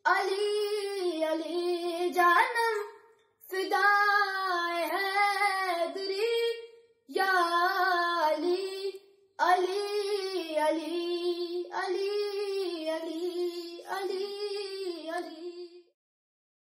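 A boy singing a devotional manqabat with no accompaniment, in four phrases with brief pauses for breath between them. The singing stops shortly before the end.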